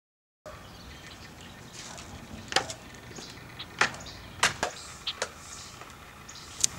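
Footsteps of sandals on wooden decking and steps: sharp, irregular clacks, some in quick pairs, over a faint steady outdoor hiss.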